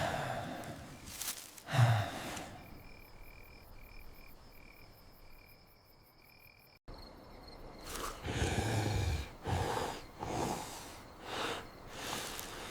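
Night-time cartoon sound effects: a steady cricket trill with repeated breathy sighs and snorts of sleeping animals, several in quick succession near the end.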